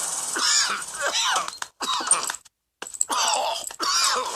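A sick cartoon bear's voice groaning and coughing with a cold: a breathy rasp, then two bouts of wavering moans and coughs, broken by a short pause a little past halfway.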